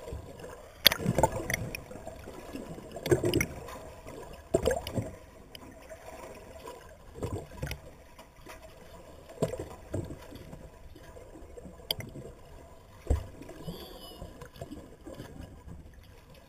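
Water sloshing and gurgling, muffled as heard by a camera in a waterproof housing just under the surface, with irregular splashes and knocks every second or two.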